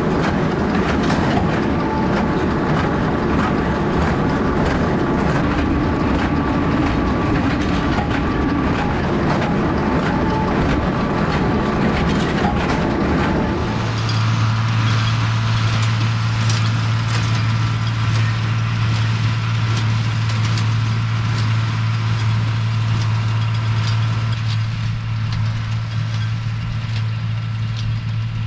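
Tractor engine running while pulling a working small square baler, with the baler's steady mechanical rattle and clatter. About fourteen seconds in the sound changes suddenly to a steady low engine hum with far less clatter.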